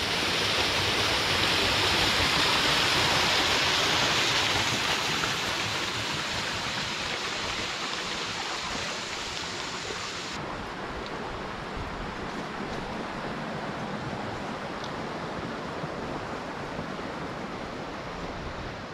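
Small waterfall splashing over rocks into a stream, a steady rushing that is loudest in the first few seconds and then slowly fades to a quieter hiss.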